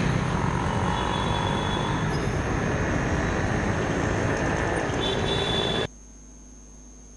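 Busy street traffic: auto-rickshaw and motor scooter engines running as they drive past, a steady din. It cuts off abruptly near the end, leaving only a faint low hum.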